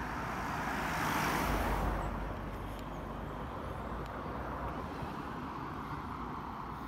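A van drives past close by: its tyre and engine noise swells to a peak about one to two seconds in, then fades into steady, quieter road noise.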